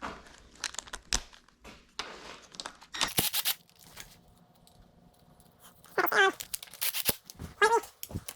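Tools and parts being handled during a dirt-bike teardown: scattered clicks and knocks, and a loud rustling scrape about three seconds in. Two short squeals with a wavering pitch come near the end.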